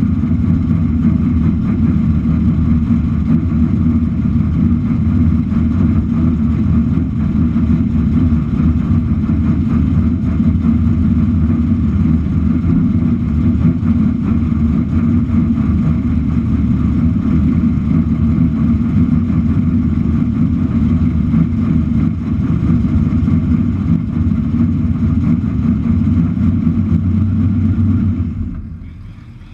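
A 1967 Camaro drag car's freshly built engine running loudly and steadily at low speed, then shut off near the end.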